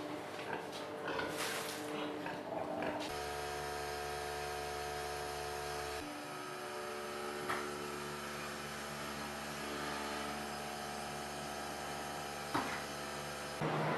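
Irregular scraping and rustling for the first few seconds over a steady hum. Then a steady electric hum and whine of several pitches at once starts abruptly, shifts slightly about halfway in, and cuts off just before the end. Two short clicks fall in the middle and near the end.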